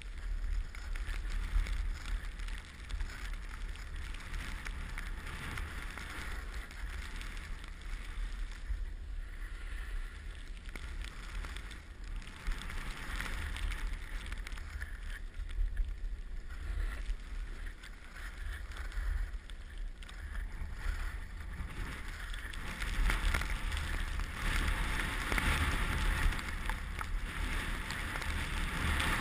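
Skis sliding and scraping over snow, the hiss swelling and fading every few seconds and loudest near the end, over a steady low rumble of wind buffeting the microphone.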